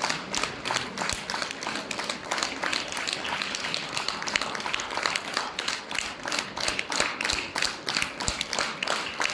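Audience applauding: a dense, steady stream of many hands clapping.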